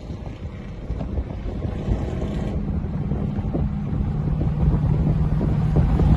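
Dodge Charger R/T's HEMI V8 with long-tube headers, catless mid pipes and no mufflers, running with a deep exhaust rumble that grows steadily louder, with wind buffeting the microphone.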